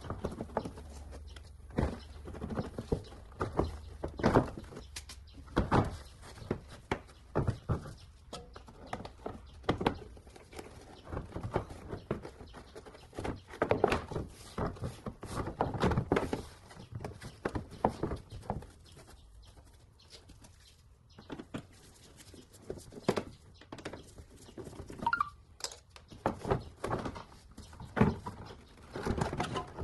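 Plastic front wheel arch liner of an Audi A3 being worked loose and pulled out of the wheel arch by gloved hands: irregular knocks, scrapes and rustling of flexing plastic, with a short squeak a few seconds before the end.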